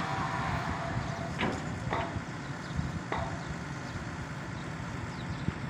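Rotary piling rig's diesel engine running steadily, with a whine that fades out about a second and a half in, while the steel reinforcement cage is lowered on its rope into the bored pile. Three sharp knocks come between about one and a half and three seconds in.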